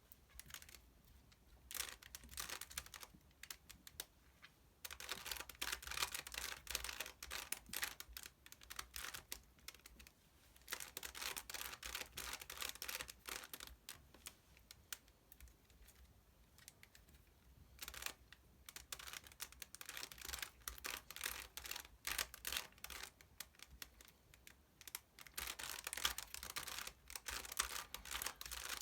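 Rubik's Cube being turned by hand: rapid runs of plastic clicks and rattles as the layers are twisted, in bursts of several seconds with short pauses between them. The sound comes from working through the final stage of the solve.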